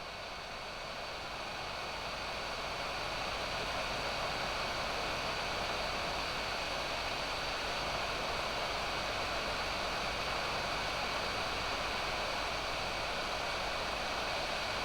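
Hot air rework gun blowing: the PWM-driven brushless fan pushes a steady rush of air, with a faint high whine over it. It grows louder over the first few seconds, then holds steady.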